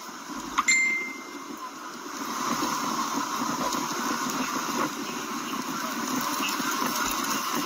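Steady outdoor street background noise, growing a little louder about two seconds in, with a short high beep near the start.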